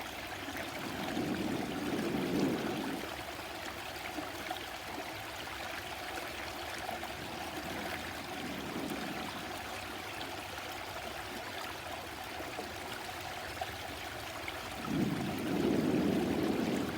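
A stream flowing steadily, its water rushing and trickling, with a louder, lower swell about a second or two in and again near the end.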